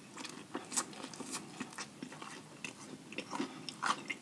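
A man chewing a mouthful of sauce-dipped fried chicken, with many short, irregular wet smacks and clicks of the mouth.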